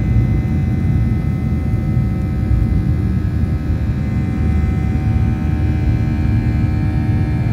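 Boeing 737-800's CFM56-7B jet engines heard from inside the passenger cabin: a loud, steady low rumble with faint whining tones above it.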